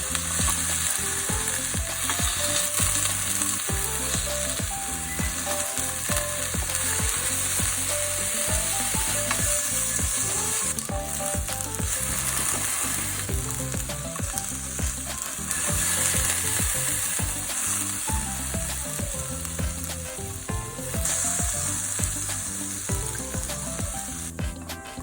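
Lotus root and pork loin stir-frying in oil: a steady sizzle with scattered clicks of stirring. The sizzle eases off briefly a few times and dies down near the end.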